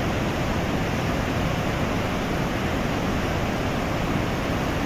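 The Parvati River rushing over boulders in whitewater rapids: a steady, unbroken rush of water.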